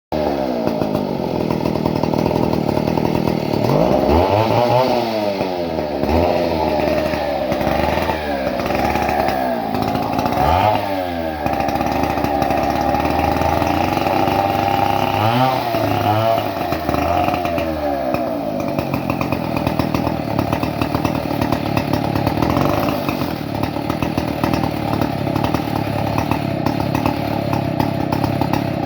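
Chainsaw engine running, its speed rising and falling repeatedly for the first part, then holding steadier.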